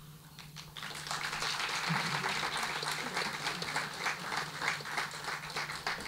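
Audience applauding. It swells over the first second or two, then holds and thins toward the end.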